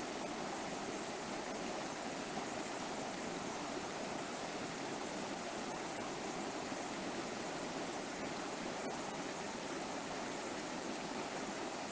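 River water flowing and rushing over rocks: a steady, even rush.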